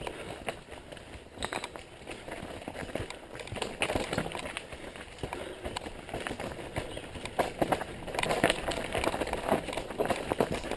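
Mountain bike rattling over rough trail, with tyre noise and frequent clicks and knocks that grow busier and louder about eight seconds in.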